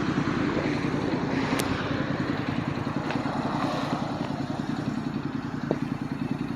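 Street traffic with a motor vehicle engine running steadily close by, a low, rapid throb.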